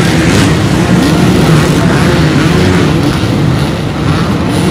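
Many dirt bike engines running and revving at once on a rocky hill climb: a loud, continuous mix of overlapping engine notes that rise and fall.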